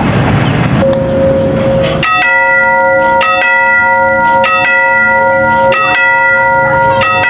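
Railroad level-crossing warning bell ringing. From about two seconds in it sounds in quick double strikes roughly every 1.2 seconds, each strike leaving a sustained metallic ring, the usual alarm while the crossing gates are closed for an approaching train.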